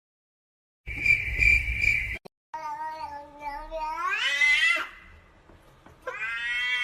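Domestic cat meowing in long, drawn-out calls: the first rises in pitch over about two seconds and breaks off, and a second held call begins near the end. A short noisy sound with a steady high tone comes about a second in.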